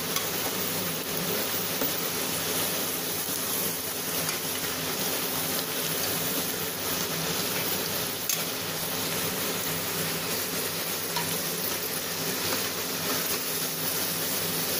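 Cornflake-coated potato wedges deep-frying in hot oil, a steady crackling sizzle, while a slotted spoon stirs through the oil and lifts them out.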